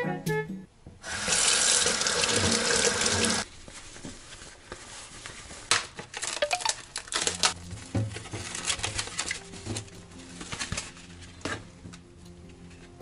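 Kitchen tap running into a stainless steel sink for about two seconds, then shut off. After it come light clicks and knocks as raw chicken pieces are tipped into a plastic colander in the sink.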